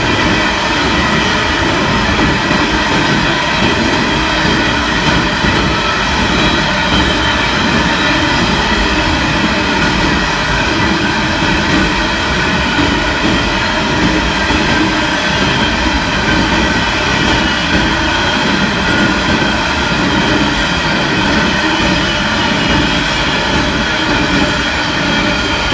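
Long ore-hauling freight train rolling past, a steady rumble of steel wheels on rail with a continuous high ringing whine over it.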